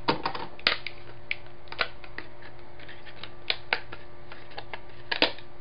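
Thin styrene plastic sheet being bent and snapped apart along knife-scored lines: a scattered series of sharp cracks and clicks, irregularly spaced, with two close together near the end.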